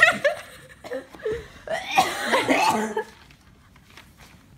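A girl coughing in several bursts over the first three seconds, the longest about two seconds in.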